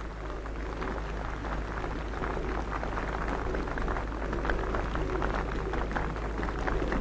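Crowd noise: a dense crackle of clapping and cheering that grows slightly louder, over a steady low hum.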